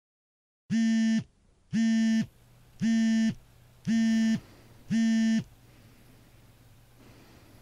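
Smartphone alarm going off: five loud, buzzy beeps, each about half a second long and about one a second, then it stops and only a faint hum is left.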